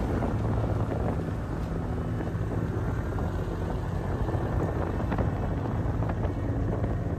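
Motorcycle engine running steadily while riding at road speed, with wind buffeting the microphone on the moving bike.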